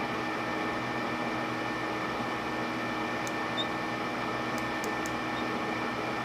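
Steady machine hum with a few level tones in it, and a few faint light clicks in the second half from a micrometer being set on the turned test bar.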